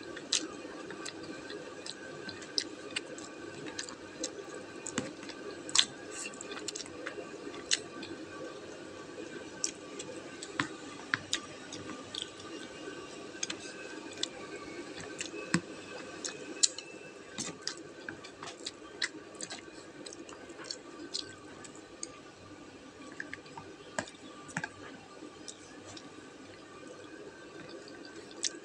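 Someone eating noodles close to the microphone: wet, squishy chewing with many sharp, irregular clicks, over a steady faint hum.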